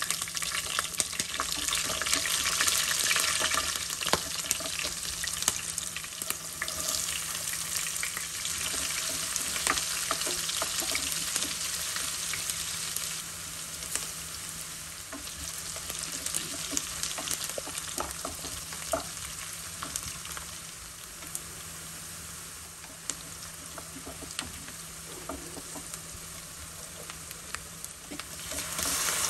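Hot oil sizzling in a kadai as green chillies, onions and curry leaves fry in a tempering of chana dal and cumin, with scattered crackling pops. It is loudest in the first few seconds after the chillies go in, settles to a softer sizzle, and grows louder again near the end.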